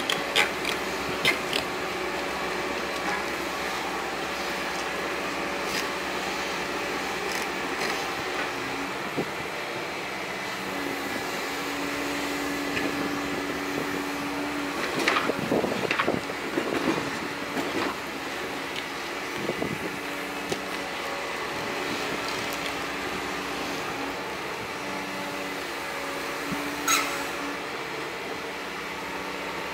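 Liebherr R926 compact excavator working with its bucket on a stony slope: the engine and hydraulics run steadily, the note stepping up and down in pitch as the arm moves. Scattered knocks at the start, a cluster of knocks and scrapes about halfway through, and one sharp knock near the end.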